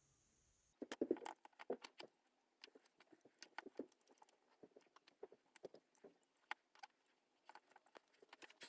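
Irregular light clicks and taps of small parts and tools being handled while an angle grinder is taken apart. They start about a second in, with the loudest cluster near the start.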